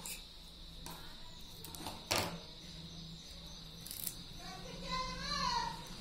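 Small objects handled and set down on a wooden tabletop: a few sharp clicks and taps, the loudest about two seconds in. Near the end comes a brief, faint, high-pitched call whose pitch wavers up and down.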